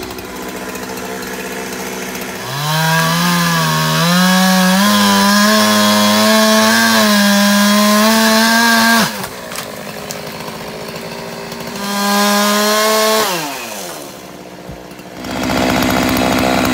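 Gas chainsaw idling, then revved to full throttle and cutting into a fallen tree trunk for about six seconds, its pitch dipping under load before dropping back to idle. Near the end it is revved briefly once more, then brought back up to full speed.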